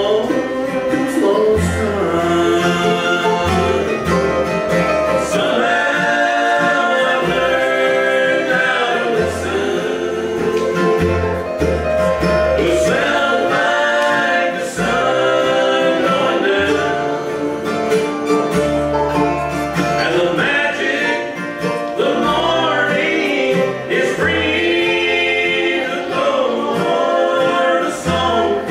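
Bluegrass band music: sung vocal lines with harmony singing over guitar and other acoustic string instruments, with a steady bass line underneath.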